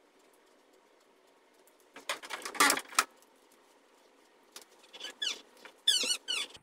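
Two-month-old baby crying in short, high-pitched wails: a loud burst about two seconds in, then a string of wavering cries near the end.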